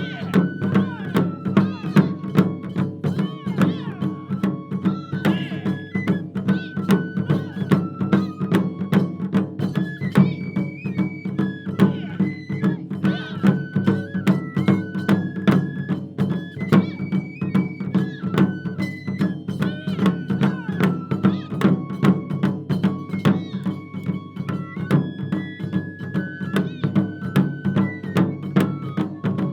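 Japanese taiko drum ensemble playing a steady, driving rhythm of rapid strikes, with a high melody of held, stepping notes carried over the drums.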